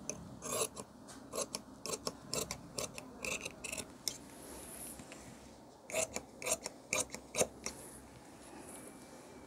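Tailoring shears snipping through blouse fabric: a run of quick cuts for about three seconds, a short pause, then a second, shorter run of snips.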